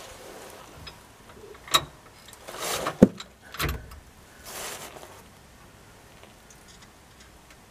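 Metal hand tools clinking against the sway bar's axle bracket hardware: a click near two seconds in and a sharp knock about three seconds in, with short scuffing and rustling sounds between them.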